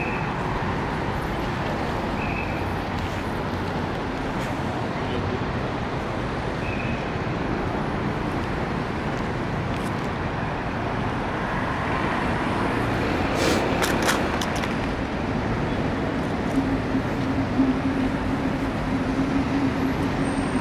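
Steady city road traffic, with cars and buses passing. A few brief sharp clicks come about two-thirds of the way in, and a steady low engine hum joins near the end.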